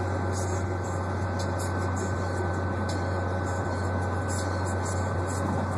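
Steady low hum with an even hiss over it inside a car's cabin, from the running car.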